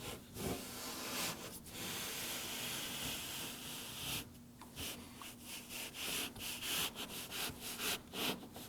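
Car door window glass sliding down inside the door against its rubber run channels: a steady rubbing hiss for about four seconds, then a run of short rubbing strokes, several a second.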